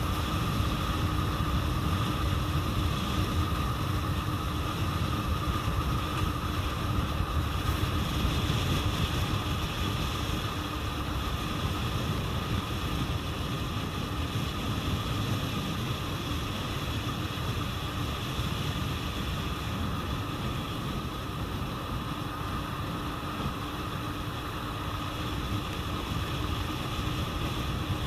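Steady running noise of a vehicle travelling along a road: a constant low rumble with a steady hum, and wind on the microphone.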